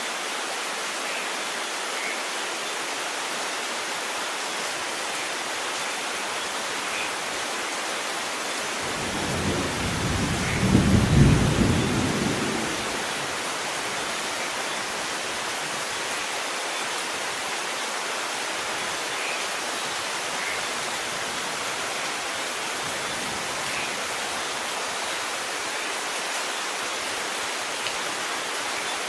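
Steady rain falling, an even hiss, with one low roll of thunder about a third of the way in that builds over a couple of seconds, peaks and dies away.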